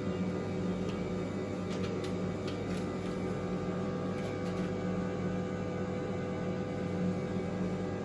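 Steady electrical hum with several even tones, unchanging throughout, with a few faint light clicks of small parts being handled in the first half.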